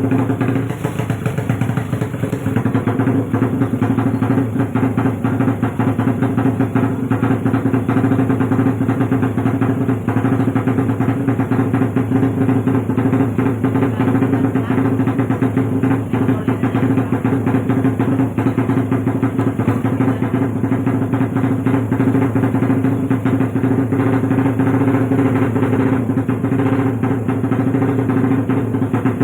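Modified motorcycle engine, freshly rebuilt, idling steadily at a fast even idle while it warms up.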